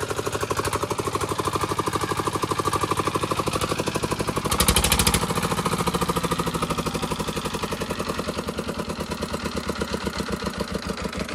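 Diesel engine of a stone-powder crushing machine running steadily with an even pulsing beat, just brought back to life after repair. It runs unloaded, with the crusher head not yet fitted. It is briefly louder about four and a half seconds in.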